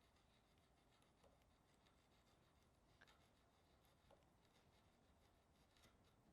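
Near silence: room tone with four very faint, short clicks spread through it.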